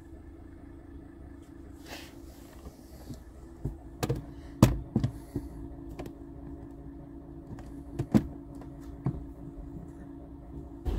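A lorry's diesel engine idling with a steady low hum, heard through the body of a parked van, with a few close knocks and clicks of handling; the loudest knock comes about four and a half seconds in.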